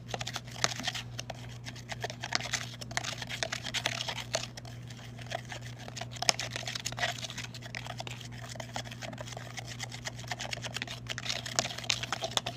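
Stirring baking soda into hot water in a small cup, the utensil clicking and scraping against the cup in quick, irregular taps, with a steady low hum underneath.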